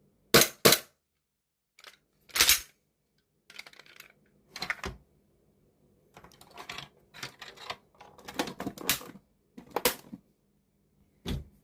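Sharp mechanical clacks from a VFC G45 gas blowback airsoft pistol being worked. There are two loud cracks close together about half a second in, then a scatter of smaller clicks and clatters, and further single cracks later on.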